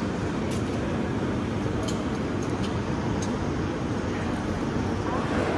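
Steady low rumble of a train standing at a station platform, heard from the platform, with a few faint clicks.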